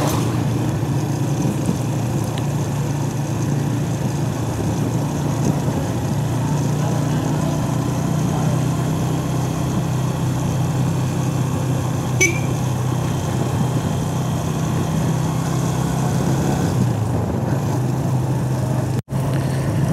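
Motorcycle engine running steadily at low road speed, heard from the rider's seat with road and wind noise. A brief high chirp about twelve seconds in, and the sound cuts out for a split second near the end.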